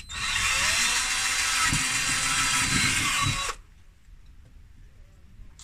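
Cordless drill speeding up and boring a small hole through a short PVC pipe spacer, running steadily with a high whine for about three and a half seconds, then stopping suddenly.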